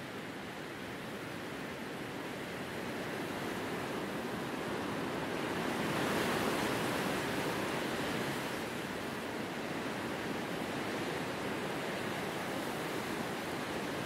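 Wind blowing through grass and a bare tree, a steady rushing that swells into a stronger gust about six seconds in and then eases off.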